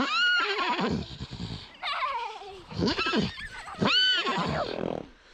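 Donkey braying: a run of loud calls, each rising then falling in pitch, about one a second, with rasping breaths between.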